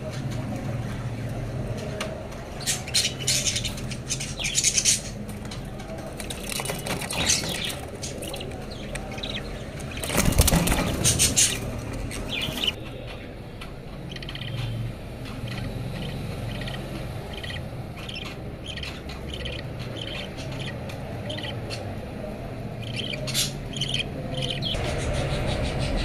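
Budgerigars in a clay-pot nest: bursts of wing fluttering and scuffling against the pot, the loudest about ten seconds in, then a long run of short, evenly repeated chirps.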